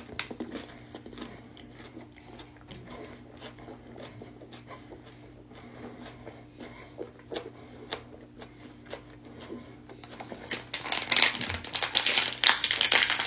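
Close-up mouth sounds of chewing hot chili peppers and stuffed olives: small wet clicks and crunches. About eleven seconds in they give way to loud, dense crackling of a thin plastic drink bottle being squeezed and crumpled as it is drunk from.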